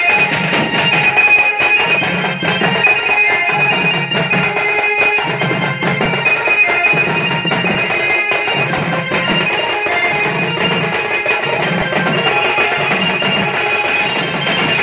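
A traditional baja folk band playing: barrel drums beating a steady, driving rhythm under a shrill reed wind instrument playing a sustained melody.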